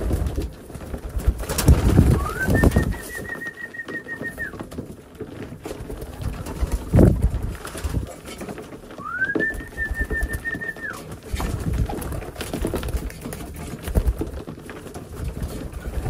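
Homing pigeons cooing, with scattered short taps and flutters. Twice, a high whistled note slides up and holds for about two seconds.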